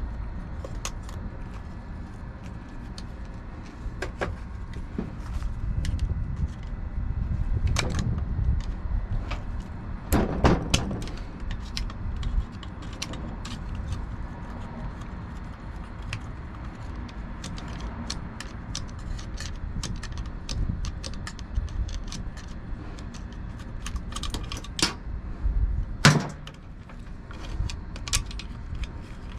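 Hand tools and metal parts clicking and clanking while the electrical connectors and wiring are removed from a Copeland semi-hermetic compressor: scattered light clicks, with sharper knocks about ten seconds in and again near the end, over low handling rumble.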